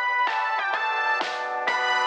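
Background music: instrumental with pitched notes struck at an even pace of about two a second.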